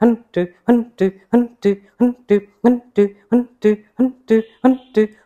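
Kapalabhati pranayama breathing: a steady run of short, forceful exhalations through the nose, about three strokes a second. Each stroke carries a brief hum.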